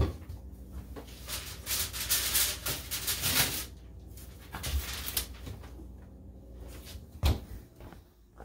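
Aluminium foil rustling and crinkling as a foil-covered tray is taken out of a refrigerator and handled, loudest from about one and a half to three and a half seconds in, with a sharp knock about seven seconds in.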